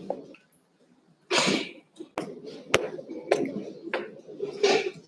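Four sharp knocks about half a second apart, between two short bursts of voices.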